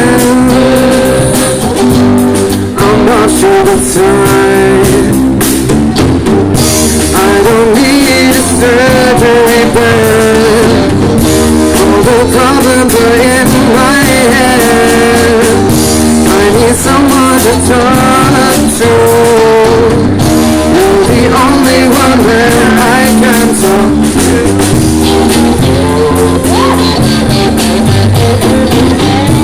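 Rock band playing loudly, with guitar and a melodic lead line over the full band.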